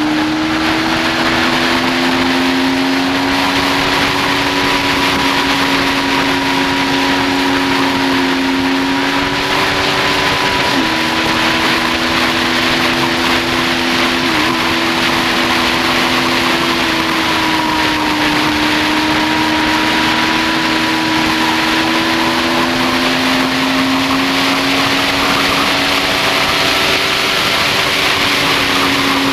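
2007 Yamaha FZ6n's inline-four engine with a Leo Vince exhaust, running at high revs at speed, with wind rushing over the bike. The engine note steps down suddenly about eleven seconds in, dips briefly a few seconds later, and climbs slowly near the end.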